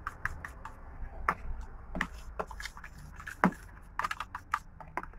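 A fork stirring thick gram-flour batter in a plastic tub, clicking and scraping against the sides and bottom in a quick, irregular run of light clicks, a few of them sharper.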